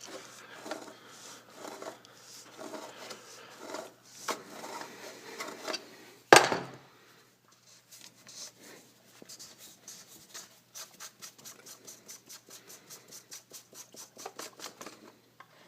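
Oil filter housing cap on a VW TDI diesel being loosened and unscrewed with a tool: irregular clicks and scraping, one sharp knock about six seconds in, then a quick, even run of ratchet-like clicks, about five a second, in the second half.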